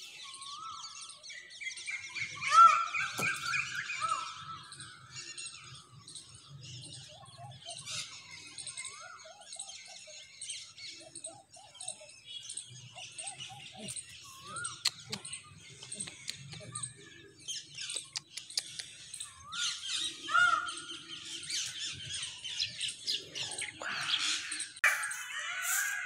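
Several birds calling and chirping: a short rising-and-falling call repeats every second or two over a constant high twittering.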